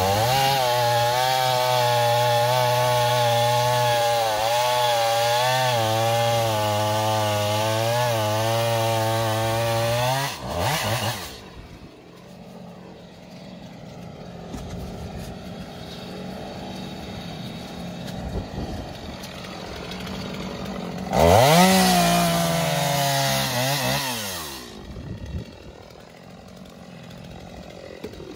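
Stihl MS 250 two-stroke chainsaw running at full throttle through a log for about ten seconds, its pitch wavering under the load, then dropping back to idle. About 21 seconds in it revs up again for a short cut of a few seconds and falls back to idle.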